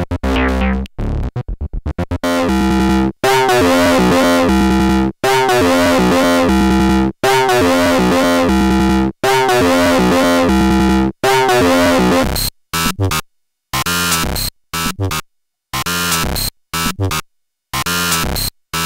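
Experimental electronic noise music made with synthesizers: rapid chopped pulses at first, then blocks of dense shifting synth tones about two seconds long, each cut off suddenly, breaking into short irregular bursts with silent gaps from about twelve seconds in.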